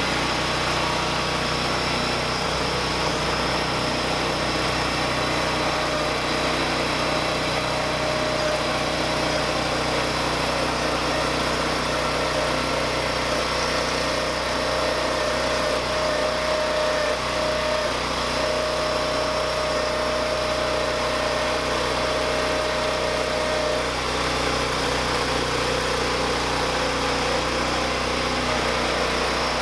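MTD 990 lawn tractor's engine running steadily. A thin, steady whine rides over it from about a fifth of the way in until roughly four-fifths through.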